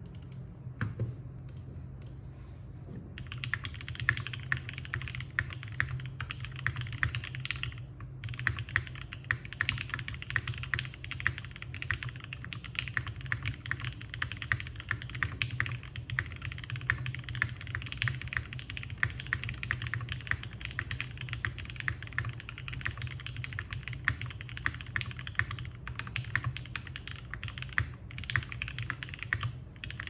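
Typing on a Geonworks F1-8X mechanical keyboard with lubed and filmed Alpaca v2 linear switches on an O-ring-mounted aluminium plate, under GMK keycaps. A few scattered clicks come first, then steady fast typing starts about three seconds in and runs on with one short pause near eight seconds.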